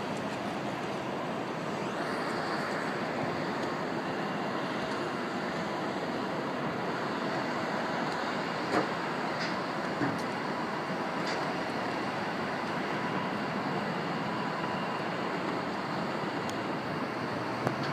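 Steady distant roar of road traffic and jet engines around a busy airport, with two faint clicks about nine and ten seconds in.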